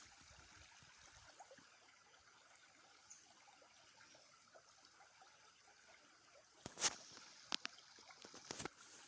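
Faint trickling of a small stream, with a few sharp clicks or knocks near the end, the first of them the loudest.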